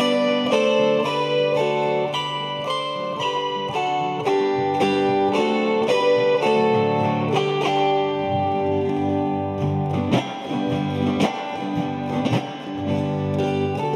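A chromaharp ensemble, four chorded zithers, playing a hymn: strummed chords ringing under a melody of plucked notes. A few sharper separate strums come about ten seconds in.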